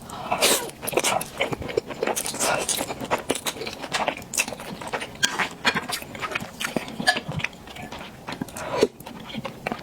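Close-miked wet, sticky clicks and smacks of hot dry noodles coated in thick sesame paste being eaten, with chewing throughout.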